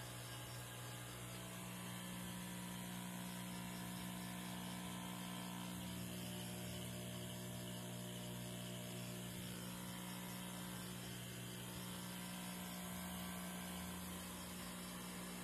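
Steady low electrical hum from a transformer under power, with a faint hiss above it.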